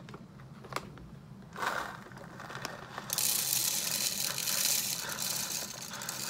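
Coffee bag crinkling as it is tipped. Then, from about three seconds in, whole coffee beans pour into the clear hopper of an electric burr grinder in a steady rattling hiss.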